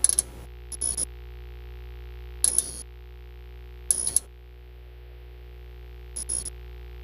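Steady electronic drone of held tones, broken by short bursts of bright ticking about five times.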